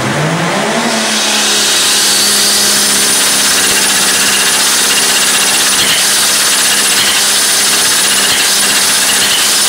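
Turbocharged engine with an open, unfiltered turbo compressor inlet run hard: the engine note climbs over the first second and then holds steady under a loud rush of intake air and a high, steady compressor whine. It is presented as the noise of compressor surge under load.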